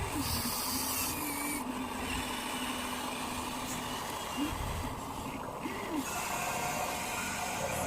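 Radio-controlled model construction machines working: small electric motors and servos whirring, with a steady whine through the first half and a few short rising-and-falling whirs a little after the middle.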